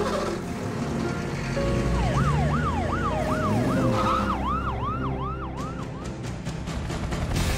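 Emergency vehicle siren in a fast yelping cycle, its pitch sweeping up and down about twice a second for several seconds, over background music.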